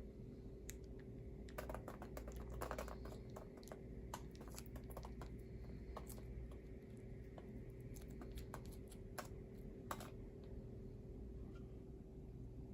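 Scattered faint clicks and taps over a steady low hum, with a quick run of clicks about two seconds in and another sharp click near ten seconds.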